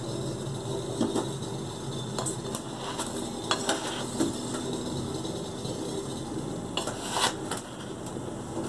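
Scattered metallic clinks and taps around a stainless steel pot on a gas stove, over a steady low hum.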